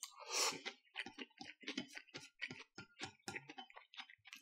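A person slurps in a mouthful of yakisoba noodles in the first half-second, then chews with rapid, sharp mouth clicks, about four a second, picked up close to the microphone.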